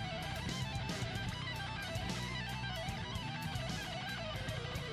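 Quiet background music led by guitar, with a wandering melody over a steady beat.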